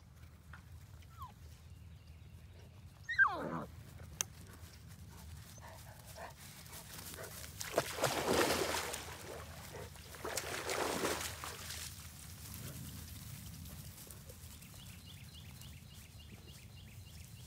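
A dog gives one short, loud yelp that falls in pitch about three seconds in. Two longer rushes of noise follow around the middle.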